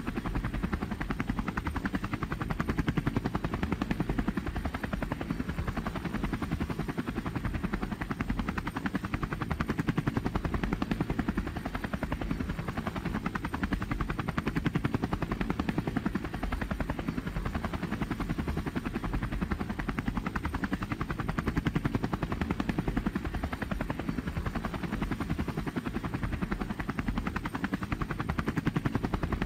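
Helicopter in flight: a steady, rapid chop of the rotor blades with engine noise, unchanging in level.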